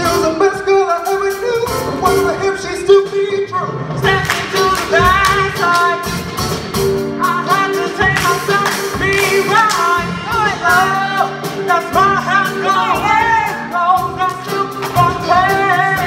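Show choir singing a pop-style number with live band accompaniment: several voices over a drum kit keeping a steady beat and a held note underneath.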